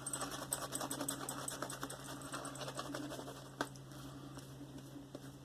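Silvertip badger shaving brush whisking a wet lather of Mitchell's Wool Fat soap: a quick run of fine, crackling clicks from the lather and bristles. There is one sharper click about three and a half seconds in.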